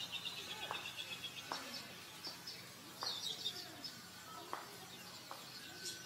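Small birds chirping, with a rapid high trill in the first second and a half and scattered short chirps and quick falling calls after it.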